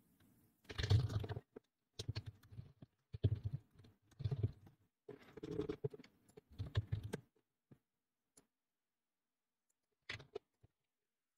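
Typing on a computer keyboard in short bursts of keystrokes, then a lull with one more brief burst of key clicks about ten seconds in.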